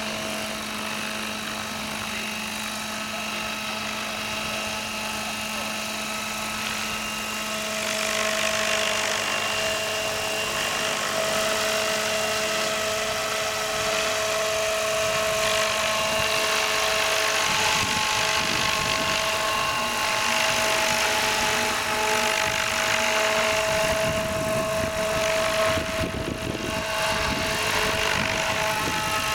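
Large radio-controlled model helicopter hovering: a steady drone of its motor and rotor blades with a held whine, getting louder about eight seconds in.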